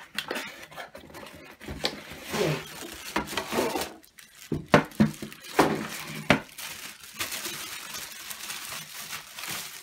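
A tripod being unpacked from its cardboard box and clear plastic bag: the packaging rustles and crinkles, with several sharp knocks and clinks around the middle.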